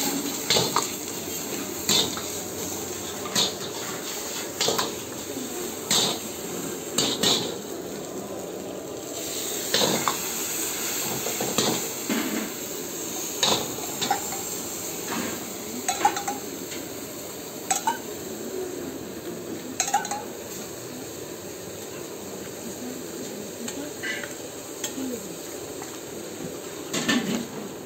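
Metal ladle scraping and knocking against a wok every second or two over steady sizzling, as chilli chicken is stir-fried on a high flame.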